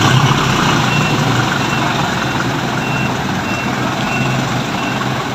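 A vehicle's reversing beeper sounding short, high beeps about one and a half times a second over the engine running: reverse gear is engaged and the vehicle is backing up.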